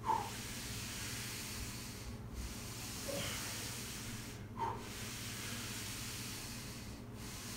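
A man breathing out in short, sharp breaths three times while exercising, over a steady hiss.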